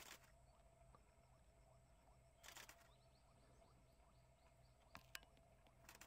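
Near silence: faint rural paddy-field ambience, broken by a few brief soft clicks, one at the start, one about halfway through and a quick few near the end.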